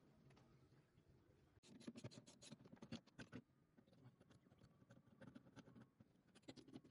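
Faint scratching and small clicks in two short flurries, one about two seconds in and another near the end.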